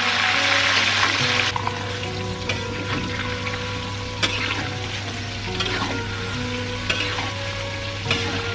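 Cubes of tofu deep-frying in hot oil in a wok, sizzling, loudest for the first second and a half and then quieter, while a metal spatula and wire skimmer stir them. Every second or so a sharp click of metal knocks against the wok.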